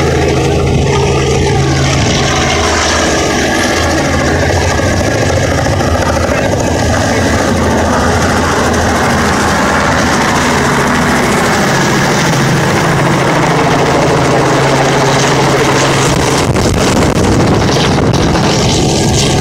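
Helicopter flying low overhead: its rotor and engine are loud and steady throughout, with a low hum underneath.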